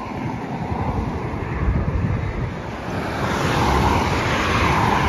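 Road traffic on a highway: tyre and engine noise of passing vehicles, swelling from about three seconds in as a white SUV drives past close by.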